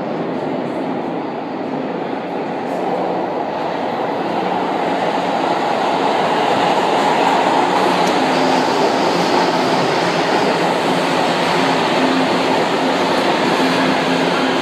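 São Paulo Metro Line 2 subway train pulling into an underground station platform. Its rumble swells over the first several seconds and then holds steady as the cars roll past.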